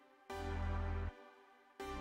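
Instrumental background music: a chord with a deep bass note comes in about every second and a half, sounds for under a second, then fades before the next one.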